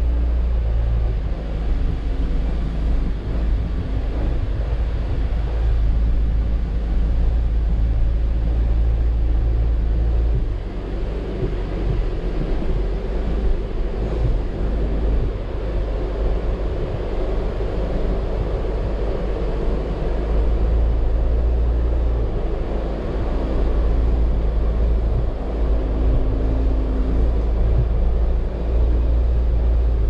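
A 2019 Jeep Wrangler JL driving slowly over a rough off-road trail: a steady low engine rumble mixed with road and body noise, easing slightly a couple of times.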